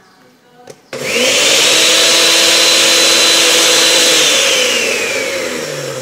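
Osterizer 10-speed blender's motor switched on from the keypad about a second in, spinning up with a rising whine and running steadily at speed, then switched off and winding down, its whine falling, near the end: the repaired keypad now turns the blender on and off.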